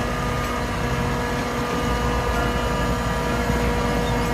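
Heavy tipper truck's diesel engine running steadily as it raises its bed to dump a load of earth, a constant low rumble with a steady mechanical whine over it.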